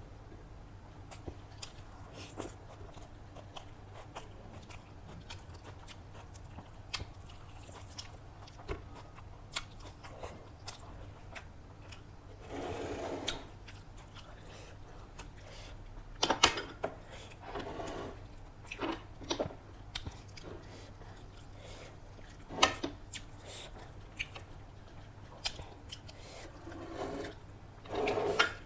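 A person eating chicken biryani close to the microphone: chewing and mouth sounds with scattered small clicks and a few louder bites.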